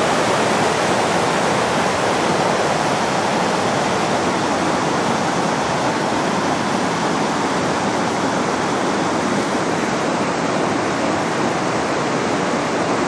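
Mountain stream rushing over rocks beneath a footbridge: a steady, loud rush of white water.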